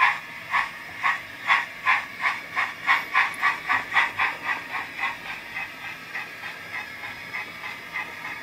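Zimo MX645R sound decoder in a 7mm-scale Ivatt 2MT model locomotive, playing a Digitrains 4MT steam sound project through its twin speakers: steam exhaust chuffs that quicken from about two to about three a second as the engine pulls away. The beats grow softer over the last few seconds.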